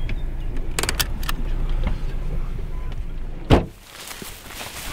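Low rumble inside a car, with a few sharp clicks about a second in, then a car door shut with a loud thump about three and a half seconds in. After the thump the rumble is gone and only quieter open-air background remains.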